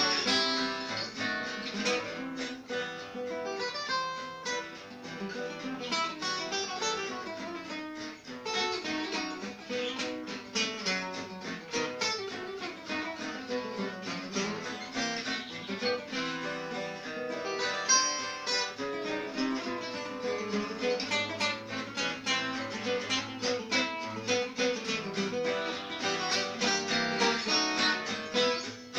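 Two acoustic guitars playing a French waltz, one of them a Selmer-Maccaferri-style guitar with a small oval soundhole; a stream of quick picked notes runs over chordal accompaniment without a break.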